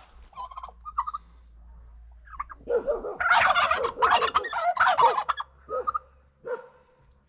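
Domestic turkey toms gobbling in alarm at noises from the surrounding woods: a couple of short calls in the first second, then a long loud run of overlapping rattling gobbles from about three to five seconds in, and two short calls near the end.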